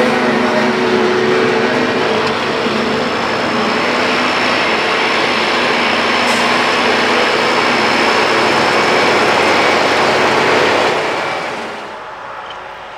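John Deere tractors pulling silage trailers past close by alongside a forage harvester: a dense, steady noise of diesel engines and rolling, rattling trailers. About eleven seconds in it drops to a quieter, more distant machine sound.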